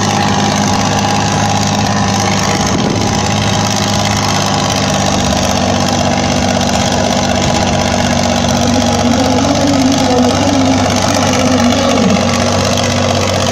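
SAME Laser 110 tractor's diesel engine running steadily under heavy load while pulling the sled down the tractor-pull track, its engine note holding constant throughout; it belches black smoke from over-fuelling. Voices faintly in the background from about nine seconds in.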